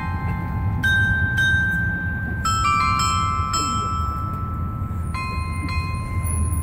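Bells of a clock-tower glockenspiel playing a slow melody, one or two notes a second, each note struck and left ringing as the next one sounds, over a low steady rumble.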